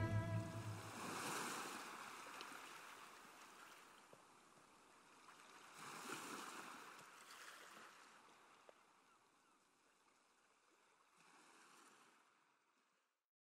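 Faint sea waves washing in, each swell of surf noise rising and falling away: one about a second in, a larger one around the middle, and a small last one before the sound cuts off. The end of a string-music track dies away at the very start.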